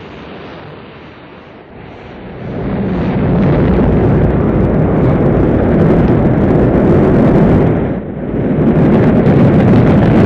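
Rocket engine noise at liftoff: a low, dense rushing rumble that swells about two seconds in and stays loud, dipping briefly about eight seconds in.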